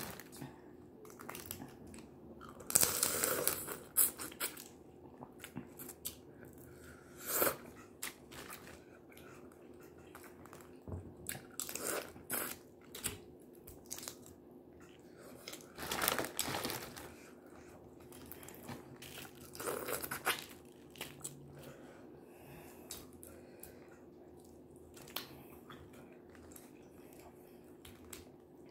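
Boiled crawfish being peeled and eaten close to the microphone: shells cracking and tearing, with chewing, in irregular bursts every few seconds.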